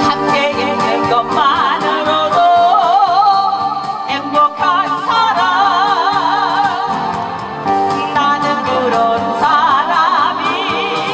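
A woman singing a Korean song into a microphone over instrumental accompaniment, with wide vibrato on her held notes.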